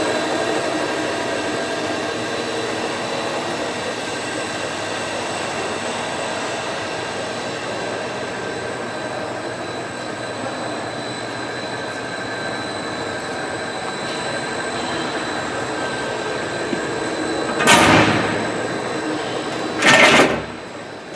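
Scott stainless steel paddle-and-ribbon mixer running, its drive motor and gear reducer turning the paddle shaft with a steady hum and whine. Near the end two loud, short bursts of noise cut through, about two seconds apart, and the running sound is quieter after the second.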